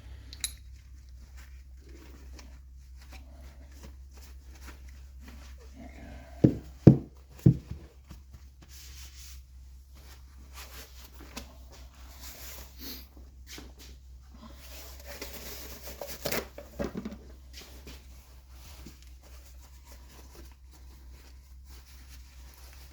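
Hands handling tools and parts at a workbench. There are three sharp knocks in quick succession a bit over six seconds in, then rustling and scraping with a few more knocks around fifteen to seventeen seconds in.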